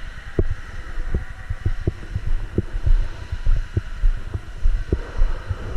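Irregular low thumps, about two or three a second, over a steady low hum.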